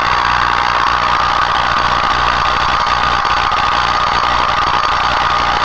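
Small homemade Tesla coil running, a loud steady buzzing hiss.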